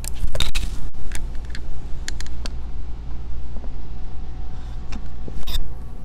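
Handling noise from a phone held close while it is swung around a room: a steady low rumble with scattered clicks and rustles, the sharpest near the start and about five and a half seconds in.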